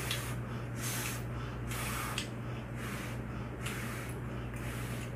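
Close-miked chewing, a soft noisy crunch recurring about every two-thirds of a second, over a steady low electrical hum.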